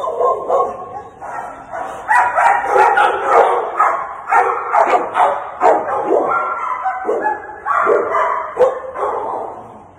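Shelter dogs in their kennels barking, the barks coming rapidly and overlapping with hardly a gap.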